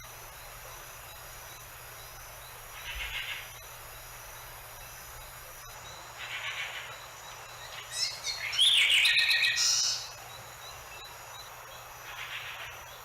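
Swamp ambience with a steady high insect hum, broken by a few soft chirps and then a loud run of rising and falling whistled animal calls about eight seconds in, lasting some two seconds.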